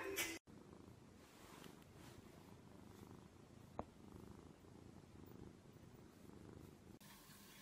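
A domestic cat purring softly and steadily, close to the microphone, after a brief noise that cuts off in the first half-second. A single short click comes a little under four seconds in.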